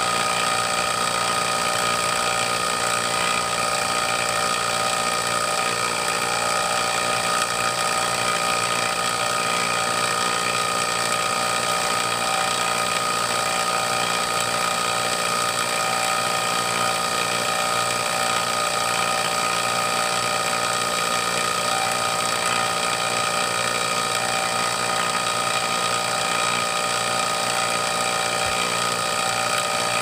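HVAC vacuum pump running steadily as it evacuates an air-conditioning system, pulling the system's vacuum slowly down through about 800 microns.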